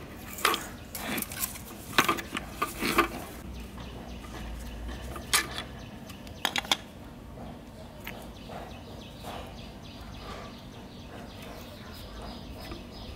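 Metal clicks and knocks from an electric fan motor being taken apart by hand, its aluminium housing and shaft parts tapping together. There are several sharp knocks in the first seven seconds, then only quieter handling.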